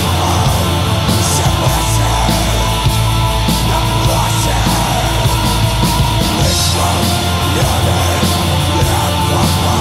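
Atmospheric black metal recording playing: a dense, unbroken wall of distorted guitar over bass and drums, at a steady loud level.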